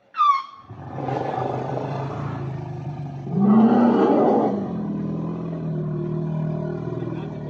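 Asian elephant calls: a short high trumpet that falls in pitch right at the start, then a long low rumbling roar, loudest from about three and a half to four and a half seconds in.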